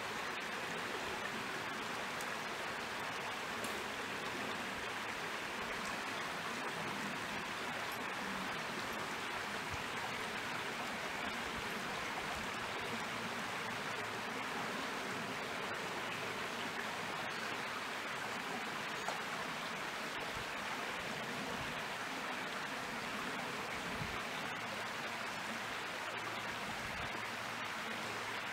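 Steady rush of a small creek flowing, an even water noise that does not change.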